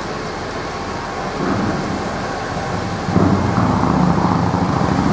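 Fire engines running, a steady low rumble that grows louder about one and a half seconds in and again about three seconds in.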